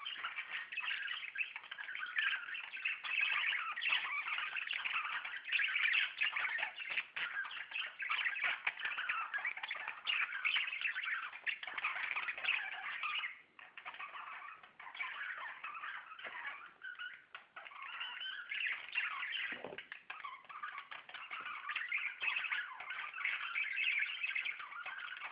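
A flock of budgerigars chattering continuously, many short overlapping chirps at once, with a brief lull about halfway through.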